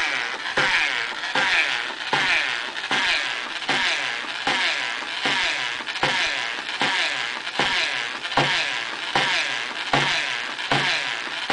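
Wooden pendulum-and-flywheel prototype running: a steady mechanical whir with a regular knock about every three-quarters of a second as the pendulum arm swings.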